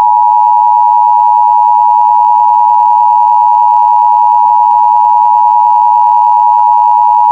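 Emergency Alert System attention signal broadcast on FM radio: a loud, steady two-tone beep of 853 and 960 Hz sounding together, unbroken throughout, marking the start of a required monthly test.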